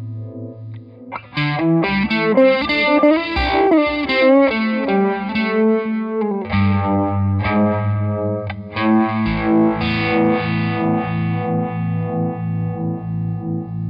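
Electric guitar, a PRS Silver Sky SE, overdriven by an original Tube Screamer and run through the RFO Electronics Waterfall, a four-phase Uni-Vibe-style chorus/vibrato pedal, which gives the tone a pulsing, throbbing sweep. A held note gives way to a quick run of single notes about a second in, and sustained chords ring from about nine seconds.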